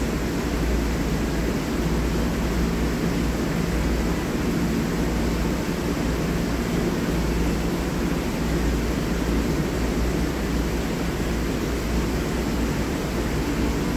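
Steady whirring hum of an electric ventilation fan running, with a strong low rumble and no change throughout.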